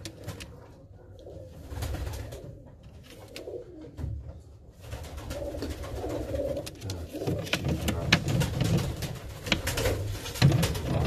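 Baku fighting pigeons cooing: low, rolling coos, sparse at first and fuller and louder from about halfway, with scattered light clicks.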